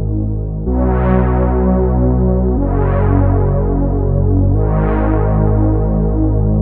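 Keyboard synthesizer playing sustained chords over a steady low bass note. A new chord comes in about every two seconds, each bright at the start and then mellowing as it fades.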